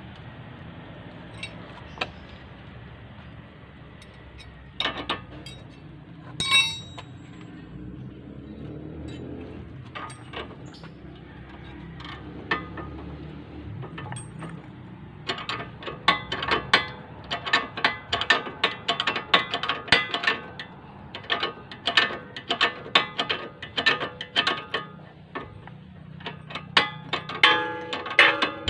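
Ratcheting wrench clicking on a bolt at the lower mount of a front shock strut, the bracket that bolts to the steering knuckle. At first there are a few scattered metal clinks. From about halfway on, quick runs of clicks follow, several a second, as the bolt is turned.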